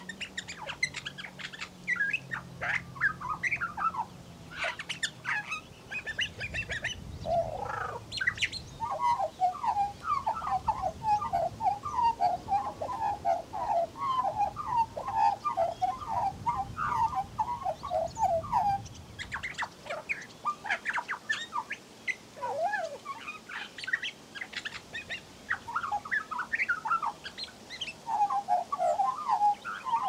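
Female Western Australian Magpie (Gymnorhina tibicen dorsalis) singing a long, fast run of short warbling, chattering notes mixed with mimicked calls of other birds, with a brief pause about two-thirds of the way through.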